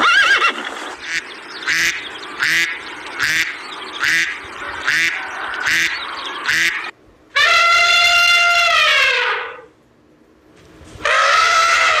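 Tail of a horse's whinny, then white domestic ducks quacking, about eight quacks spaced evenly under a second apart. Next comes a long, loud elephant trumpet lasting about two seconds, and a second trumpet begins near the end.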